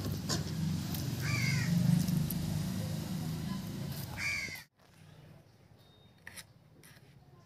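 A crow cawing twice, over a steady low rumble of outdoor background noise that cuts off suddenly near the end; afterwards only a few faint taps.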